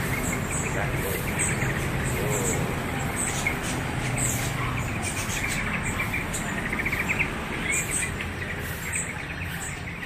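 Many small caged songbirds chirping together: a dense flurry of short, high, overlapping chirps over a steady low background hum.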